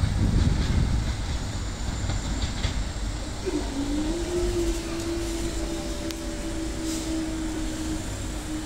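The low rumble of a departing Class 185 diesel multiple unit fades away. About three and a half seconds in, the level-crossing barrier mechanism starts with a steady hum as the barriers rise.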